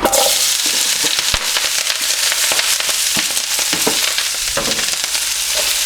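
Vegetables going into a wok of hot vegetable oil: a sizzle starts suddenly as they land, then carries on steadily with crackling pops as they fry.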